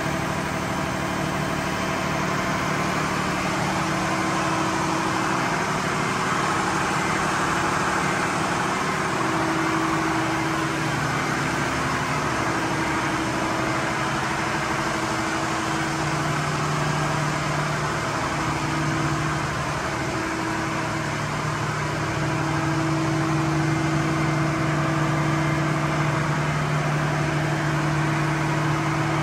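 Marine diesel engines running steadily in a ship's engine room: a loud, even drone with low hum tones that come and go.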